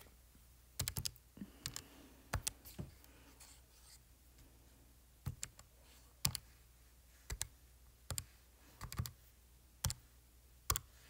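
Buttons of a handheld calculator being pressed: about fifteen sharp, irregular clicks, some in quick runs of two to four, as a division is keyed in.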